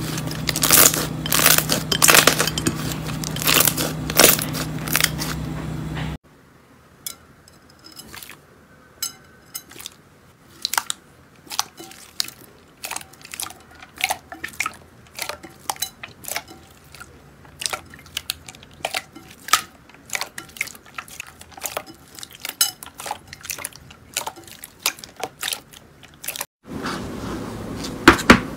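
Slime being stretched, squeezed and pressed by hand: a run of sticky crackles, clicks and pops as its air pockets burst. The crackling is dense at first, turns to sparser separate clicks for most of the stretch, and grows dense again near the end.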